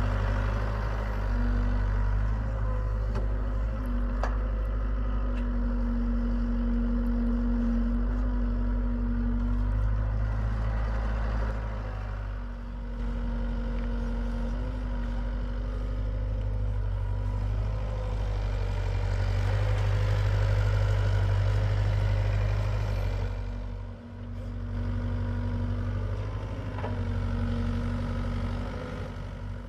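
Hitachi EX75UR excavator's diesel engine running continuously as it digs. Its note swells and eases with the working load, with a higher tone that comes and goes, and the level dips briefly twice, about twelve and twenty-four seconds in.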